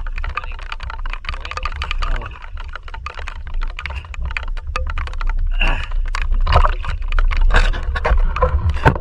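Sea water slapping and splashing against a camera held at the surface, with dense crackling clicks of water on the housing over a low rumble of water and wind on the microphone.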